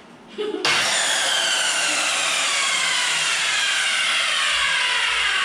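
A loud machine whine that starts abruptly about half a second in and holds steady, its several tones sliding slowly down in pitch.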